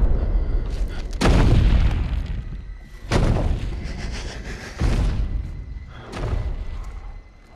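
A series of deep booms, one about every one and a half to two seconds, each dying away slowly and each fainter than the one before.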